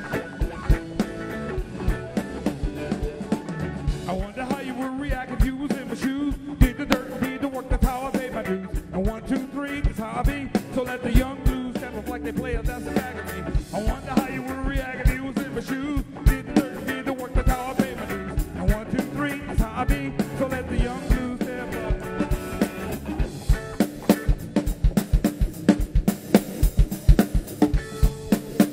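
Live funk-blues band playing: drum kit and electric bass guitar with a wavering lead line over them. In the last few seconds the drums carry the music almost alone.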